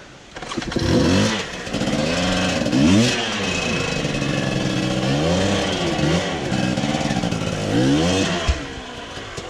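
Husqvarna TE250 enduro motorcycle engine revving up and down about four times under throttle. A single sharp knock sounds near the end, as the engine drops back to a lower, steadier note.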